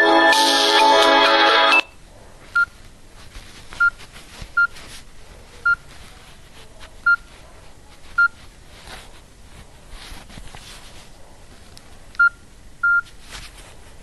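A Nokia 6124 classic mobile phone's ringtone playing, cut off abruptly about two seconds in, then about eight short single-pitch keypad beeps at irregular intervals as the phone's keys are pressed, over faint handling clicks.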